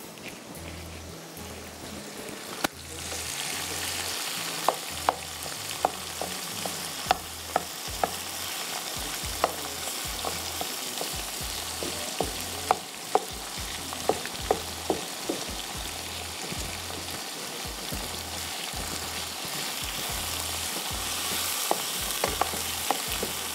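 Minced beef with onion and whole spices frying in hot oil in a non-stick wok, sizzling steadily while a wooden spatula stirs it, knocking against the pan every second or so. The sizzle swells sharply about three seconds in. This is the bhuna stage, where the mince is browned before the ground spices go in.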